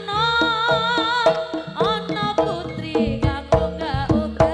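East Javanese barongan ensemble music played live: a wavering, bending melody line with a reedy, overtone-rich sound over frequent sharp hand-drum strokes.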